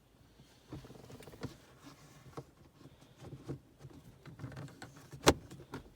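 Light rustling, small knocks and clicks of plastic console trim and a shift boot being handled and fitted around the gear lever, with one sharp click about five seconds in.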